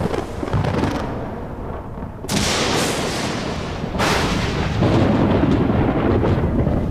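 Thunder: a low rumble, broken by two sharp cracks about two and four seconds in, each trailing off into a long rumble.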